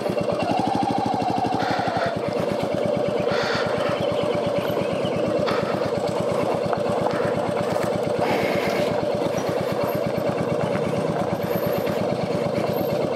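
Royal Enfield Meteor 350's single-cylinder engine running steadily at low revs, with an even thump from start to finish as the motorcycle is taken slowly over the trail.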